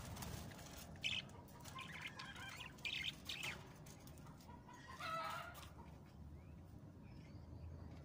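Caged budgerigars chirping in short, scattered calls, the clearest about five seconds in.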